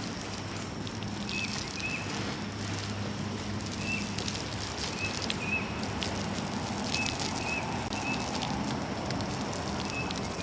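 Steady hissing noise over a low, even hum, with a short high chirp repeating every second or so.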